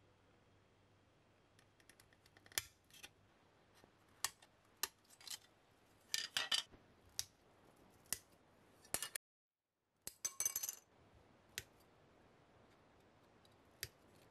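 Sprue cutters snipping plastic model-kit parts off their runner: a series of sharp clicks and snaps, some coming in quick clusters, with the plastic sprue clicking as it is handled.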